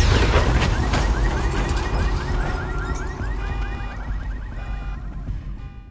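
Car alarm sounding a fast repeating rising chirp, about five a second, over a deep rumble. Both slowly fade.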